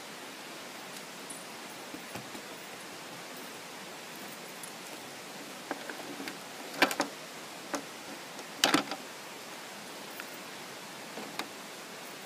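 Plastic dolls being handled and knocked against a plastic toy bed and wooden deck boards: a few sharp knocks about seven and nine seconds in, over a steady hiss.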